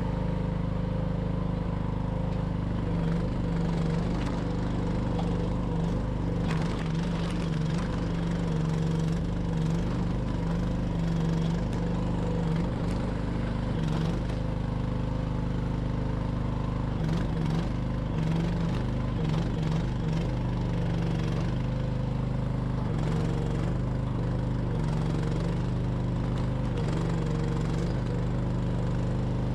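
Mini excavator's small engine running steadily under digging load, its pitch shifting up and down now and then.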